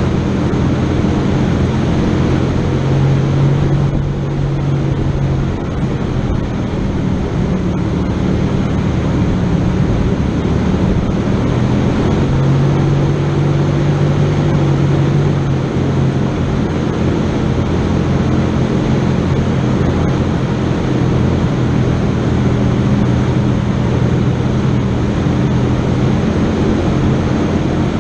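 A vehicle engine running steadily, speeding up briefly twice, about three seconds in and again about twelve seconds in.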